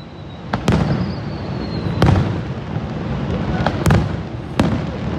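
Fireworks bursting in the air: about five sharp bangs, two close together near the start, one about two seconds in and two more near the end, each followed by a short echo, over a continuous low rumble.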